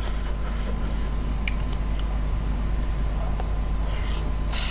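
Eating sounds: a few faint clicks and rustles as fingers pick up rice noodles, then a short, hissy slurp as the noodles are sucked into the mouth near the end, over a steady low hum.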